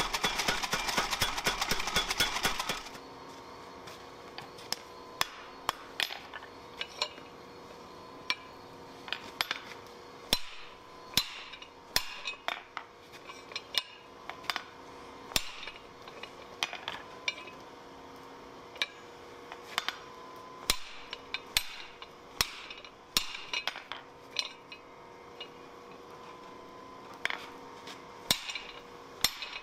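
Homemade power hammer pounding a glowing steel bar with rapid blows for about the first three seconds, then stopping. After that, irregular single sharp strikes and clinks of metal on hot steel over a faint steady hum.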